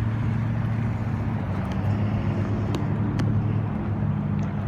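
A car engine running steadily with a low, even hum, its pitch shifting slightly about a second and a half in.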